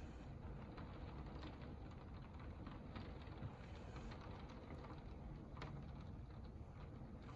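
Rain falling steadily during a tropical storm, with scattered close drips ticking now and then over a low rumble.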